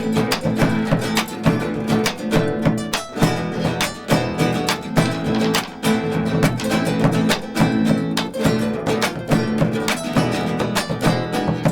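Acoustic guitar strumming the rhythm of a chaya, the Riojan carnival folk song, played instrumentally with fast, evenly spaced strokes.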